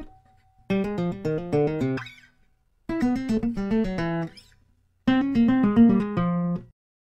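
Plucked guitar music: three short phrases of quick picked notes, each about two seconds long, with brief silences between them.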